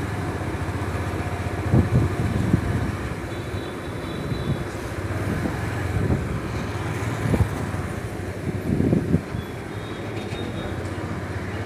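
Road traffic noise heard from a moving motorcycle passing a queue of heavy trucks: a steady low engine hum under road noise, with a few brief louder bumps about two seconds in and again around seven to nine seconds in.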